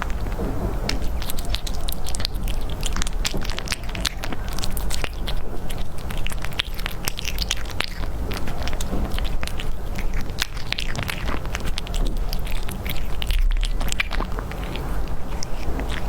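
A cat chewing and biting into meat: many quick, irregular wet clicks and crunches of its jaws and teeth, over a steady low rumble.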